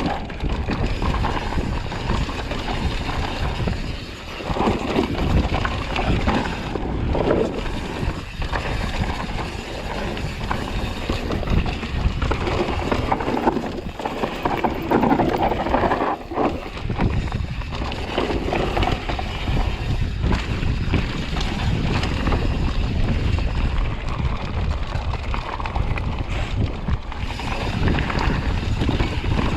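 Mountain bike descending a rough bike-park trail: steady wind noise on the microphone over the rumble of tyres on dirt and constant knocks and rattles from the bike over bumps.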